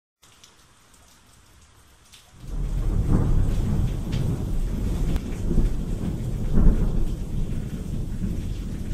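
Faint rain at first, then about two seconds in low rolling thunder comes in with the rain and rumbles on, swelling louder around three and again around seven seconds.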